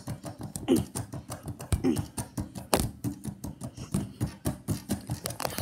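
Red reflex punching ball on a spring stand being struck over and over: a rapid, uneven string of smacks and rattles, with a short falling tone about once a second.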